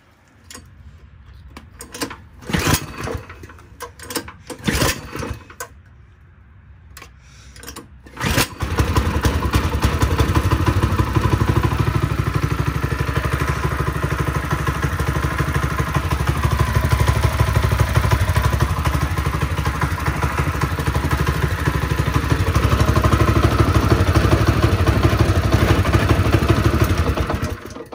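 Predator 212 single-cylinder four-stroke engine on a Coleman mini bike being pull-started: a few rough pulls on the recoil starter, then it catches about eight seconds in and runs steadily before cutting off abruptly near the end.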